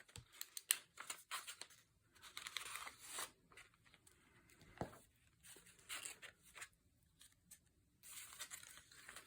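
Paper pages of a handmade junk journal being turned and handled: faint, scattered rustles and light taps.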